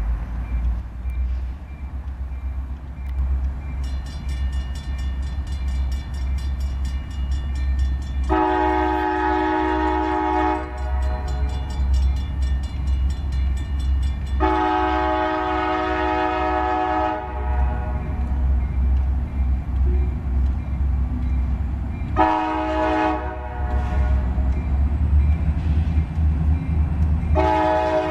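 Locomotive air horn of EMD SD60 CSXT 8714 sounding the grade-crossing signal: two long blasts, a short one, then a final long blast that begins near the end. Before the horn, a grade-crossing warning bell rings rapidly, over a steady low rumble.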